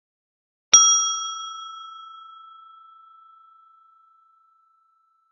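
Small brass bell struck once, ringing out with a clear high tone that fades away over about three seconds.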